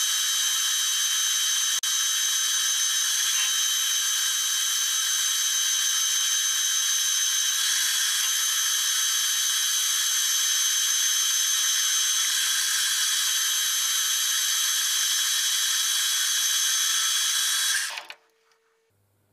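Metal lathe running with a bushing held in its chuck, a steady high whine over a hiss. It is switched off near the end and the sound drops away suddenly as the spindle stops.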